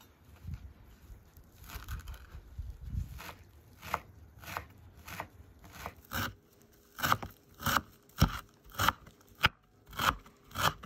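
Chef's knife chopping fresh green herbs on a wooden cutting board. Light cuts at first, then sharp chops about one or two a second, loudest in the second half.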